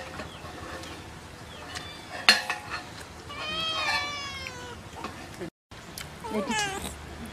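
Domestic cat meowing: one drawn-out, wavering meow about three seconds in and a shorter one near the end. A sharp click a little after two seconds is the loudest sound, and the sound cuts out for a moment midway.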